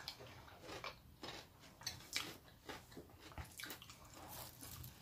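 Faint, wet chewing and mouth smacking of someone eating roast duck off the bone, with irregular small clicks.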